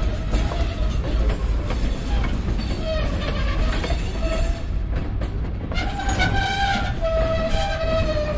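Freight cars, covered hoppers, rolling slowly over a road grade crossing: a steady low rumble of wheels on rail. From about three seconds in, steady ringing tones come and go, two longer ones near the end.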